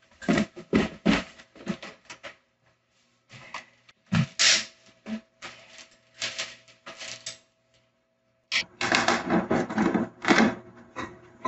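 An irregular clatter of clicks and knocks, busy at the start, sparse in the middle and busy again from about two thirds of the way in.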